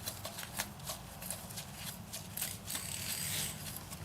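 Ratchet wrench with a 10 mm deep socket clicking irregularly as it turns a small nut on the bike's axle adjuster, with light knocks of metal tools.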